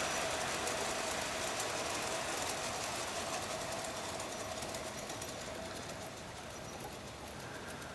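A G-scale Bachmann Consolidation model steam locomotive running on its track, its drive motor and gears giving a steady whine. The sound fades steadily as the train moves away.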